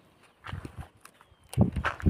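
A few soft footsteps scuffing on a gravel track, near silent at first, with sharper clicks and scuffs coming in the second half.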